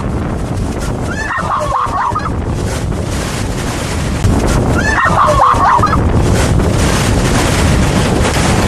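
Motorboat running at speed towing a tube, with wind buffeting the microphone and water rushing; it gets louder about four seconds in. Two brief high-pitched shouts cut through, about a second in and again about five seconds in.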